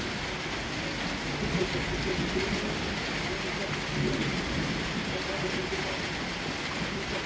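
Steady rain falling in a thunderstorm, with a low rumble of thunder underneath.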